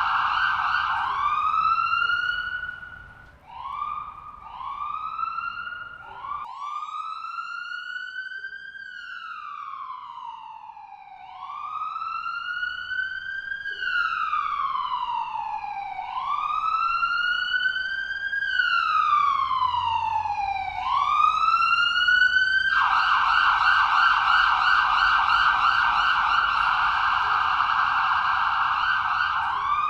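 Ambulance siren cycling through its tones. It opens on a fast yelp, gives a few short rising whoops, then settles into a slow wail that rises and falls about every five seconds. It switches back to the rapid yelp for the last several seconds.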